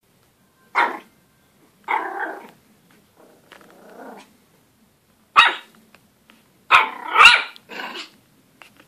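Pomeranian puppy barking at its own reflection in a mirror: a string of short, sharp barks at irregular intervals, with a quieter, longer growl about three and a half seconds in and the barks coming closer together near the end.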